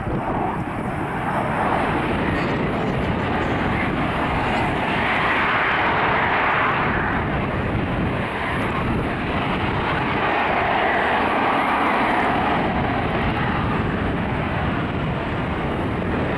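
F-35B Lightning II's single F135 turbofan jet engine running loud and steady, a rushing jet noise that swells twice as the aircraft passes.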